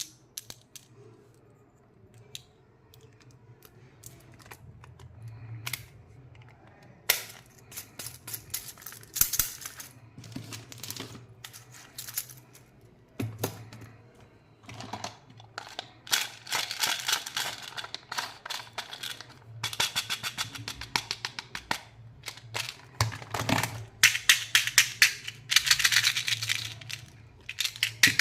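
Plastic candy packaging crinkling and clicking as it is handled and opened, in scattered clicks at first and then dense crackling bursts in the second half.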